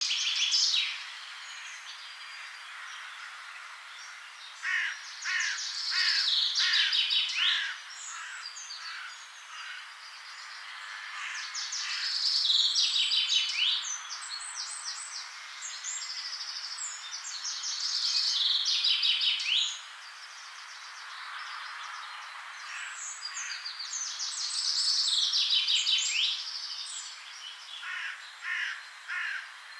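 Small songbirds singing: phrases of rapid high trills and chirps come back every few seconds over a faint background hiss.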